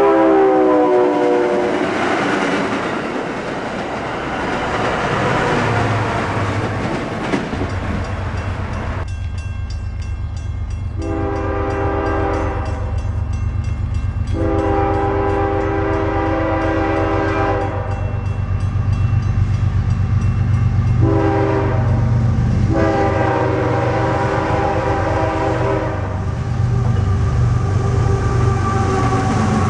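An MBTA commuter train's horn dies away with falling pitch as the train passes, followed by the rush of the passing coaches. Then a CSX freight locomotive approaches a grade crossing with a low engine rumble, sounding its horn in a run of long blasts with a short one among them.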